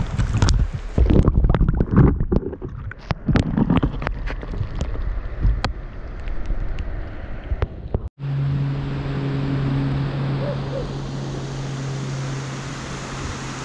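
Water splashing and sloshing right at a half-submerged camera as a sabaleta is let go by hand, with sharp clicks and knocks. About eight seconds in it cuts abruptly to a steady rush of river water with a low steady hum.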